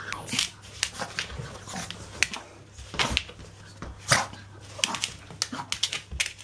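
Small dog playing wildly on a towel: irregular scuffling and scrabbling, with a few short dog noises among them.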